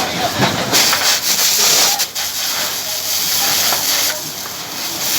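Fire hose spraying water: a loud, rushing hiss that swells about a second in, dips briefly, and eases near the end.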